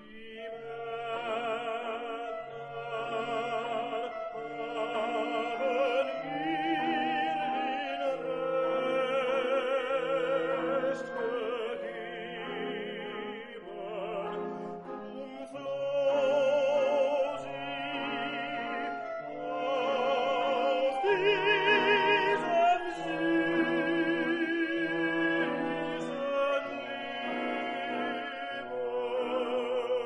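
Classical music: an operatic voice singing with wide vibrato over orchestral accompaniment, with a low bass note repeating under it.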